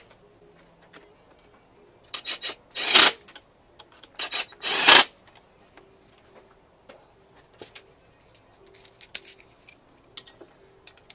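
Socket ratchet rasping in two short bursts, about two and five seconds in, then scattered light clicks of metal hand tools being handled.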